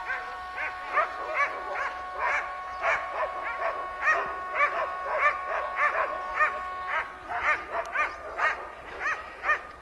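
Harnessed sled dogs (huskies) barking and yelping over and over, about two barks a second, as the team waits hitched to the sled at the start. A steady high whistle-like tone runs underneath until about seven seconds in.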